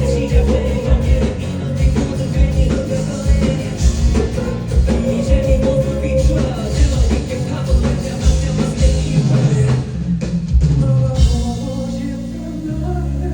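Live rock band playing an instrumental passage, with drum kit, bass and guitar, heard as a concert recording. The busy drumming thins out about 11 seconds in, leaving held low chords.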